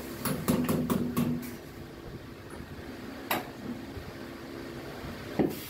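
Workshop clicks and knocks at a wheel balancing machine while a balance weight is fitted to a car wheel: a quick run of sharp taps over a low hum in the first second and a half, then two single knocks, one in the middle and one near the end.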